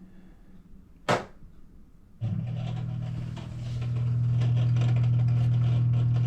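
LG front-loading washer's drain pump humming steadily without pumping the water out, a sign that the drain pump has failed. The hum starts about two seconds in and grows louder about a second later, after a short blip about a second in.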